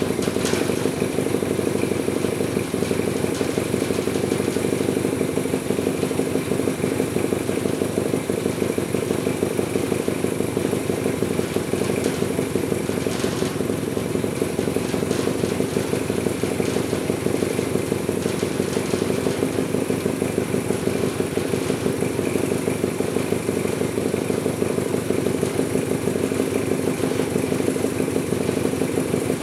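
Honda CB175's small parallel-twin engine running at a steady speed, without revving. It is running for the first time since its restoration began.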